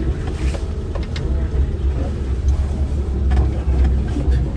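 Off-road vehicle driving over a rough dirt track, its engine a steady low rumble heard from inside the cabin, with scattered knocks and rattles from the body as it bumps along.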